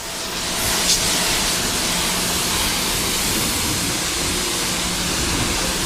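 Karcher electric pressure washer spraying through its lance. The water jet gives a steady hiss over a low hum from the pump, building up over the first second and then holding even.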